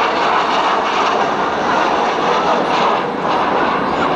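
Steady jet noise of the Avro Vulcan's four Rolls-Royce Olympus engines as the bomber flies past in its display.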